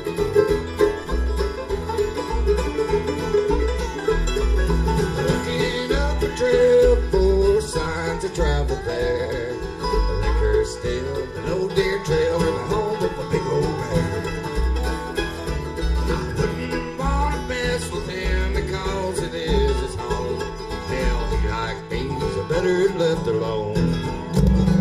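Instrumental bluegrass music: picked banjo and acoustic guitar over a steady bass beat.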